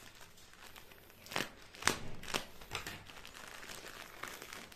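Plastic courier mailer bag crinkling and rustling as it is pulled and torn open by hand, with a few sharper crackles a little past one, two and two and a half seconds in.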